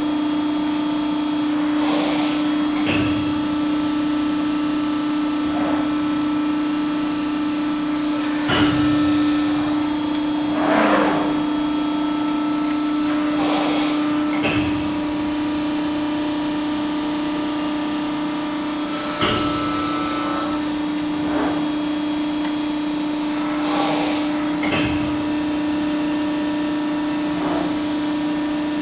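Hydraulic power unit of a 240-ton Fab-Line/Baykal CNC press brake running with a steady hum, with clunks and knocks every few seconds as the ram cycles through rapid down, pressing and rapid return.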